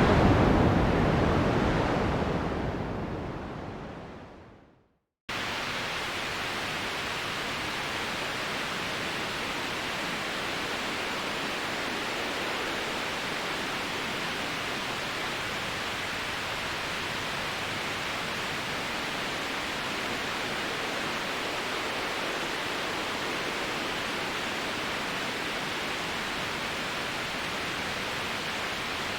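Synthetic sleep noise changing from one variation to the next. A deep, bass-heavy noise fades out over the first five seconds, there is a brief silence, then a brighter, even pink-type noise starts suddenly and runs steadily.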